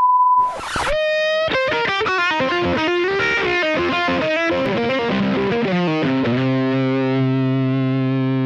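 A steady test-tone beep that cuts into a brief burst of TV static, then a distorted electric guitar riff that ends on a long held chord.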